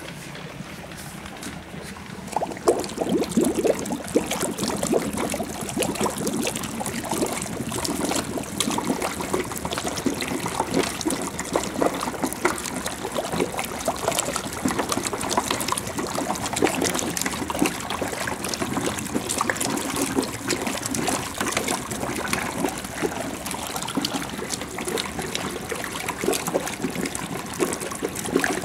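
HHO (hydrogen-oxygen) gas from an electrolysis generator bubbling hard out of a hose held under water in a plastic bucket: a continuous churning gurgle. It grows louder about two seconds in, with the generator drawing about 38 amps.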